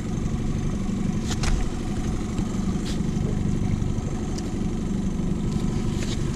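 Mercury outboard motor running steadily at low trolling speed, with a few light clicks from gear being handled.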